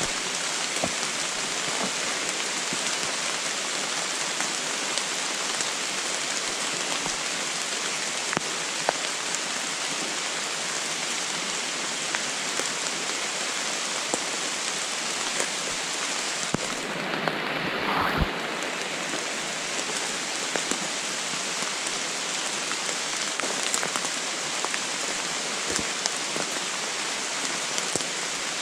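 Steady rain falling on the forest canopy and leaf litter, with scattered drops ticking. About seventeen seconds in, a brief muffled rustle with a low thump comes close to the microphone.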